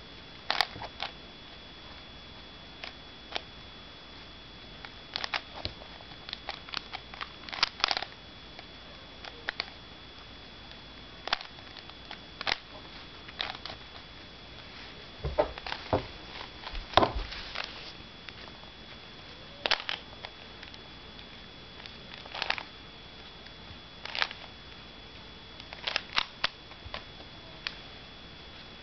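Rubik's Cube being turned by hand in a solve, its plastic layers clicking and clacking in irregular flurries of quick turns with short pauses between.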